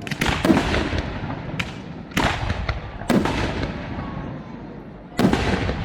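Aerial firework shells bursting: about five loud bangs, two in quick succession at the start and then three more spaced a second or two apart, each followed by a rolling echo that dies away.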